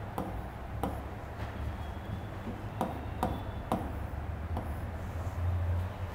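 Stylus pen tapping and drawing on the glass screen of an interactive touch display: several light, scattered taps over a low steady hum.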